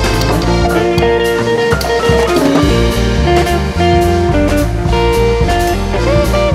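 Background music with a steady beat, held melody notes over a bass line.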